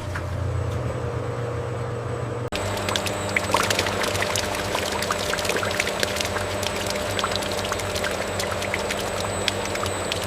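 Liquid pouring and splashing steadily over a low machine hum. About two and a half seconds in, the sound changes abruptly from a plain hum to the pouring.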